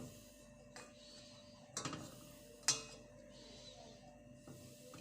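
A few light knocks and clinks of a kitchen utensil against a cooking pot, a short cluster followed by one sharper clink that rings briefly, just under three seconds in.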